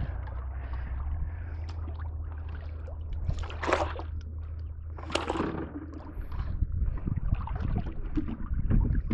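Water sloshing and lapping against a fishing boat, with a steady low rumble that weakens about six seconds in. Two louder splashes come about three and a half and five seconds in.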